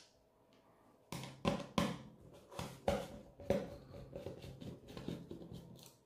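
Hand screwdriver and fingers working on the plastic case and circuit board of a Sonoff Dual R2 smart switch as its screws are undone: a run of irregular clicks and clatters starting about a second in.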